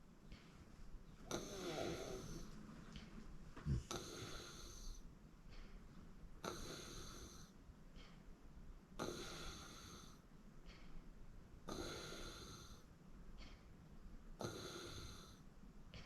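A sleeping person snoring, about six snores evenly spaced roughly two and a half to three seconds apart. There is one brief low thump a little under four seconds in.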